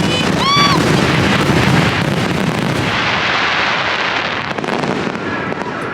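Fireworks going off in a dense, continuous run of bursts, with a short shout about half a second in; the bursts fade away near the end.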